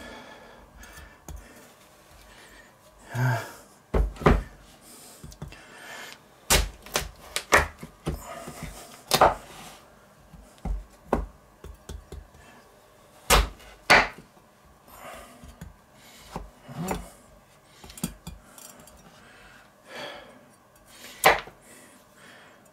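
Chef's knife cutting a Hokkaido pumpkin on a wooden cutting board: irregular sharp knocks as the blade goes through the hard rind and strikes the board, with quieter handling of the pieces between.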